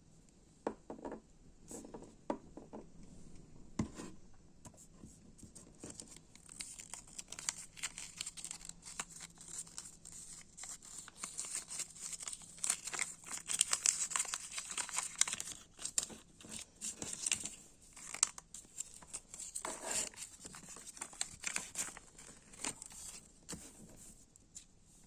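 Packaging being unwrapped by hand: wrapping crinkling and tearing, with scattered sharp clicks and taps, busiest around the middle.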